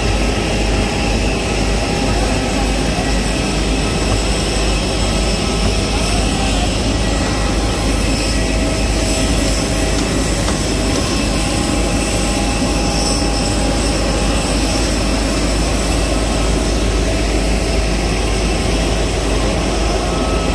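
Steady vehicle noise: a continuous low rumble with an even hiss over it, unchanging throughout.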